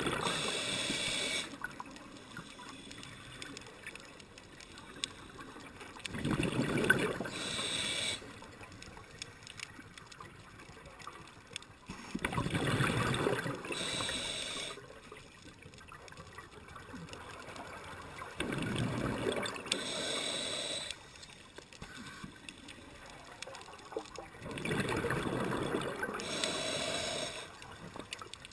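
Scuba diver breathing through a regulator, heard from inside a camera's underwater housing: a gurgling rush of exhaled bubbles about every six seconds, each lasting a couple of seconds, with a quieter hiss between.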